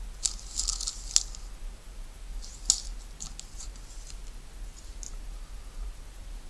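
Packaging of an RC steering servo being handled: a small plastic bag and a cardboard card crinkling, with sharp clicks. A cluster of crinkles comes in the first second and a single loud one about two and a half seconds in, then fainter scattered ticks.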